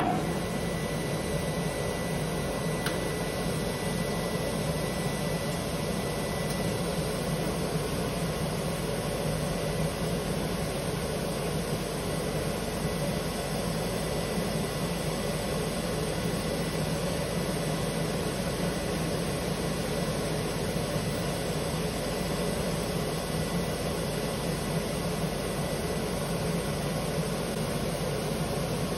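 LÖWER TopSpin denibbing and edge sanding machine switched on and running with no workpiece: a steady, even machine noise with a faint high whine, unchanging throughout.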